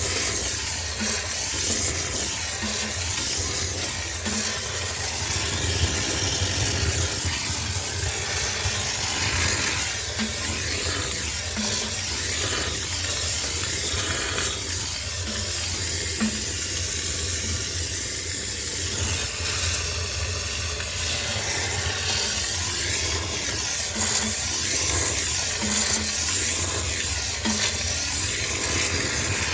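High-pressure steam cleaner spraying with a continuous loud hiss, over a low steady machine hum, as it steam-sterilizes a sneaker washing machine.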